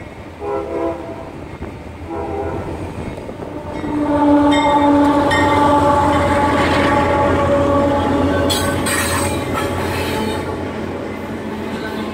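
Kansas City Southern GE ES44AC diesel locomotive's horn sounding two short blasts, then a longer, louder blast as the lead unit passes close with its engine running. After the horn stops, the wheels clatter and squeal as the double-stack intermodal cars roll by.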